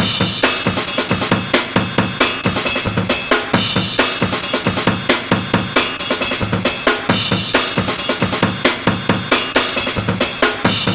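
Sampled drum break, kick and snare, looping at about 135 beats per minute as a sliced pattern whose slices are being moved to new spots, so the pattern shifts. The slices cut each other off.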